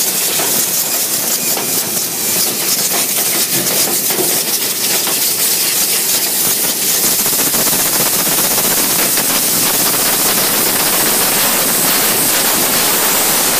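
Loud, steady rush of air through a forced-air heating duct during duct cleaning, with dust and debris blowing through it and a fine, rapid crackle running through the hiss.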